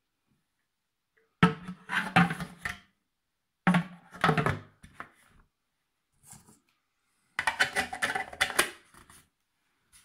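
Hard plastic parts of an ultrasonic humidifier knocking and clicking together as the water tank is handled on its base and the top cover is fitted. There are three short bursts of knocks and rattles, about a second and a half in, about four seconds in, and from about seven and a half seconds in.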